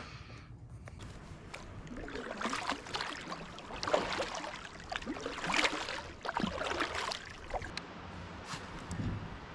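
Kayak paddle dipping and splashing in calm river water beside an inflatable paddleboard, a few irregular strokes with water trickling off the blade.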